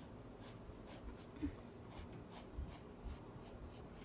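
Wooden graphite pencil scratching across paper in short, repeated strokes, about three a second, with a soft bump about a second and a half in.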